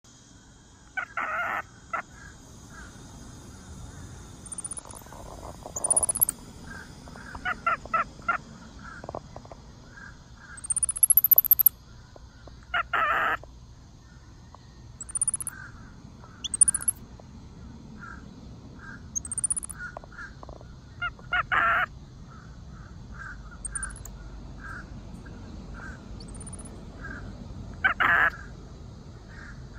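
Baby white-faced capuchin monkey chirping: short chirps in quick runs, a louder, harsher call every several seconds, and thin, very high rising chirps in between.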